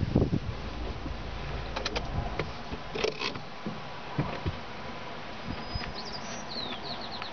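A car's low rumble fades away in the first couple of seconds, leaving quieter outdoor air with a few scattered clicks. Near the end comes a quick run of high, falling bird chirps.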